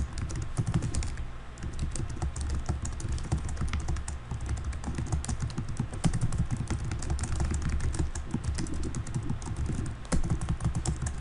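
Continuous typing on a computer keyboard: a fast, unbroken run of keystroke clicks.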